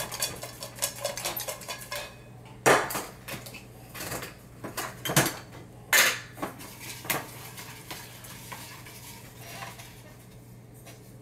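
Yellow metal kettle with paper slips inside shaken, its lid and handle rattling rapidly for about two seconds. Then a few separate sharp metal clanks as the lid is handled and a hand reaches in, followed by quieter handling.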